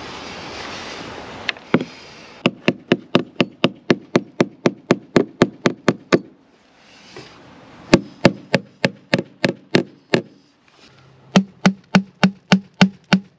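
Hammer tapping rapidly, about four to five blows a second, in three runs with short pauses, driving in small cable clips for a power wire. A steady hiss fills the first couple of seconds.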